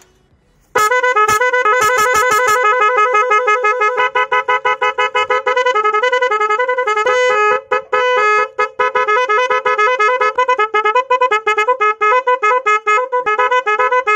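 A pair of MOCC digital motorcycle horns sounding loudly, playing a fast electronic tune of short, quickly changing notes. It starts about a second in and keeps going.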